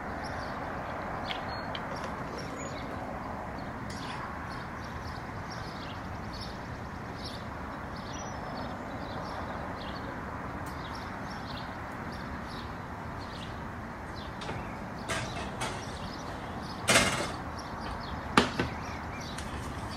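Steady low hiss with faint scattered clicks of utensils against a steel mixing bowl. Near the end come two sharp knocks as an oven door is handled.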